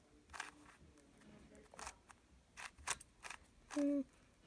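Plastic 3x3 puzzle cube being turned by hand: a few separate sharp clicks as its layers are twisted and snap into place.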